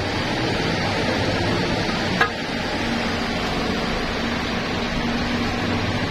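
Gear oil draining from a rear differential into a metal drain pan: a steady pouring hiss, with one sharp click about two seconds in.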